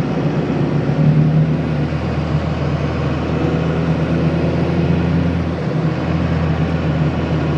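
2001 Dodge Ram's Cummins 5.9-litre inline-six turbo-diesel with an HX40 turbo pulling hard uphill under load, heard from inside the cab. The engine note dips briefly about six seconds in at a shift into fifth, then carries on steadily.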